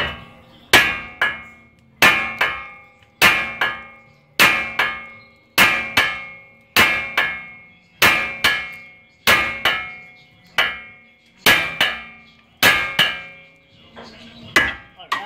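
Hammer blows on the steel front suspension, working parts loose to remove the CV axle. Each strike is a hard, ringing metal hit with a lighter second hit just after it, repeated about a dozen times at roughly one pair every 1.2 seconds, with the last blows weaker.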